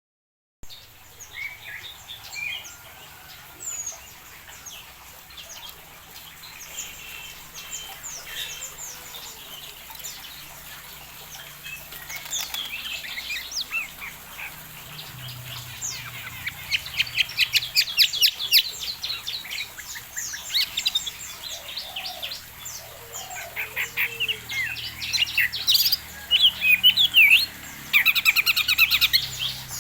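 A flock of aviary birds chirping and trilling, with many quick overlapping calls. The chorus starts sparse and grows busier and louder from about halfway through.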